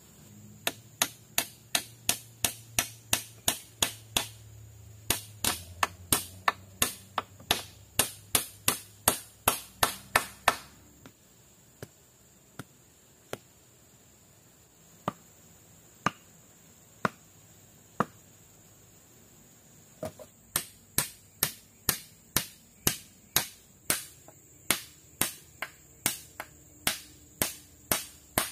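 A tool striking wood in quick, sharp blows, about three a second, in two long runs with a few single blows between them.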